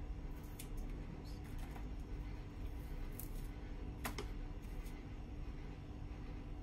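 A few light clicks and taps from handling small pins, double-sided tape and scissors, the sharpest about four seconds in, over a steady low room hum.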